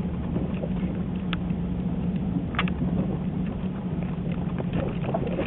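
A vehicle engine running steadily, a constant hum over low rumble, with two short clicks about a second and two and a half seconds in.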